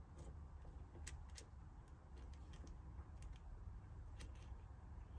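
Faint, irregular small clicks of a hex key turning the screws that clamp an RC car's brake pads and rotor, over a low steady hum.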